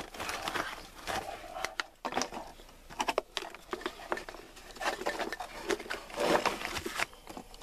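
Hands unscrewing a plastic riser pipe from an old sump pump's threaded discharge port, making irregular clicks, knocks, scraping and rustling as the fittings are worked loose.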